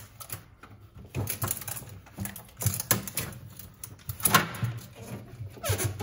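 Irregular plastic clicks and knocks as hands work a refrigerator's clear plastic chiller drawer and shelf, picking at the packing tape that holds them.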